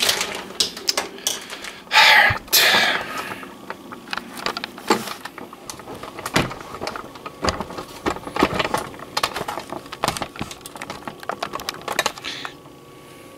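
Handling noise from a handheld camera being picked up and carried: irregular rustles, clicks and knocks, loudest about two to three seconds in.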